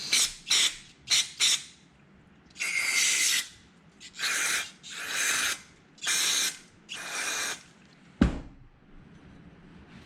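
Aerosol cleaner sprayed onto a stripped brake caliper in repeated hissing bursts: four quick spurts, then five longer sprays of about half a second to a second each. A single sharp knock about eight seconds in.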